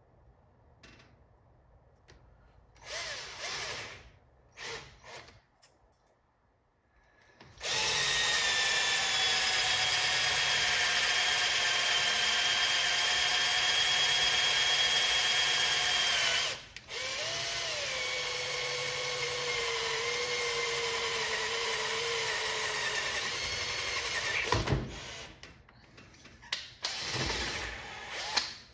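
Electric drill with a dull 5/8-inch bit boring out the centre of a wooden dowel. It runs with a steady whine for about nine seconds, stops briefly, then runs again with its pitch slowly sagging under load before it stops. A few light knocks and handling sounds come before and after.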